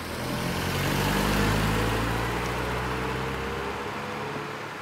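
A car driving past on the road, its engine and tyre noise growing louder to a peak about a second and a half in, then slowly fading away.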